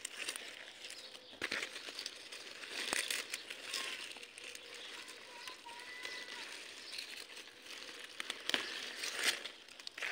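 Strawberry leaves and stems rustling and crackling as a hand pushes through the plants picking berries, uneven, with a few sharper crackles.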